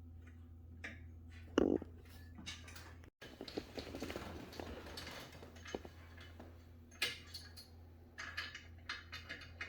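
Parts of an exercise bike being handled during assembly: a single low thump about one and a half seconds in, then scattered clunks, clicks and rustling over a steady low hum.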